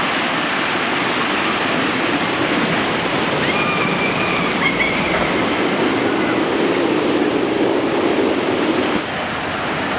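Steady rush of water pouring through the Stanley Falls log flume's channel, the ride running again. It eases slightly near the end.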